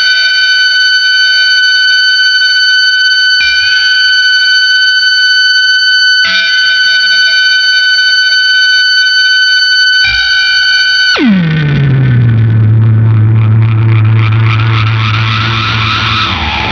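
SG electric guitar through a Big Muff fuzz and MXR Analog Delay with light reverb. A high, sustained fuzz note is struck again about every three seconds. A little past halfway the sound sweeps steeply down in pitch and settles into a low drone under a dense, hissing wash of delay repeats.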